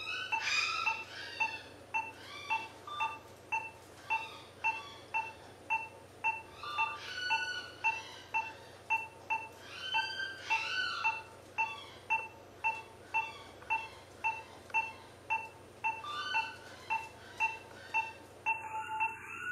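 Anaesthetic patient monitor beeping steadily about twice a second, a short pitched pip with each of the dog's heartbeats.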